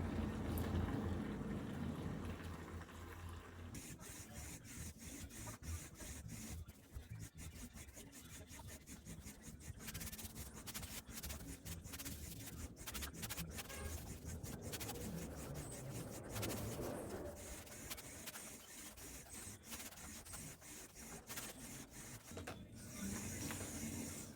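Fish frying in hot oil: a steady sizzle full of small crackles and pops.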